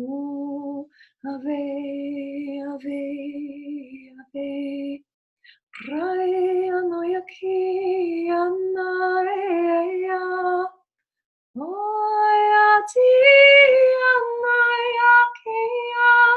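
A woman singing long, held, wordless tones unaccompanied, in phrases broken by short pauses for breath. The notes sit low at first and step higher in the later phrases.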